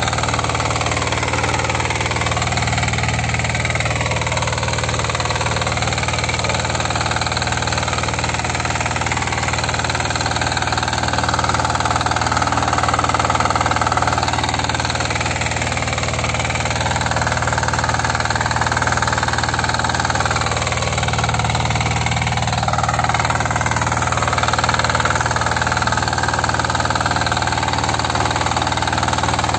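Motor Sich walk-behind tractor engine running steadily while the machine pulls a steel frame harrow through ploughed soil.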